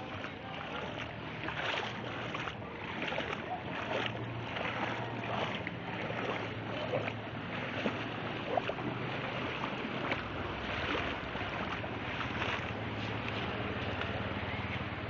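Footsteps wading through shallow floodwater, splashing at an even walking pace, over a low steady hum.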